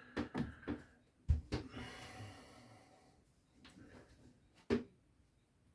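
Shaving kit being handled: a few light clicks, a dull knock followed by a short fading rush, and a sharp click near the end.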